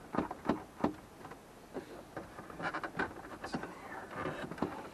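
Irregular clicks, taps and rustling of hands and tools working on plastic car dashboard trim.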